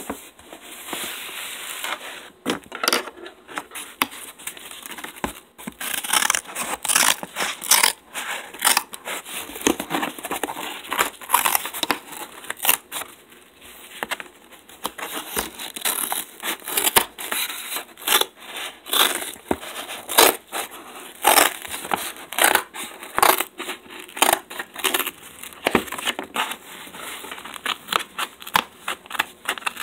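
Brown kraft wrapping paper being handled and unfolded, with dense, irregular crinkling and crackling.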